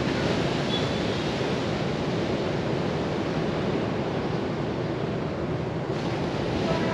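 Steady rush of sea surf on a beach, mixed with wind noise on the microphone.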